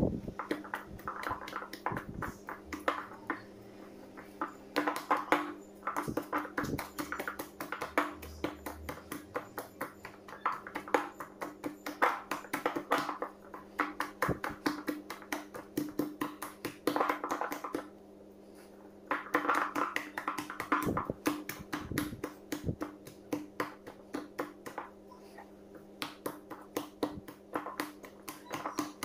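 Sticky, wet yeast dough being beaten by hand in a glass bowl: rapid repeated slaps and squelches, with a short pause a little past halfway, over a steady low hum.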